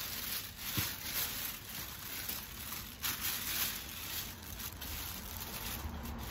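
Soft, irregular rustling, swelling about once a second, with a small low knock about a second in.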